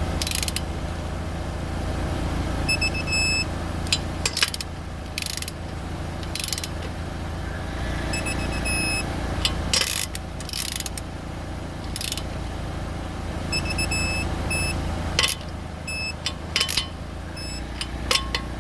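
Digital torque wrench on the lug nuts giving repeated groups of short high beeps as each nut reaches the set 85 ft-lb, with the ratchet clicking between them. A steady low hum runs underneath.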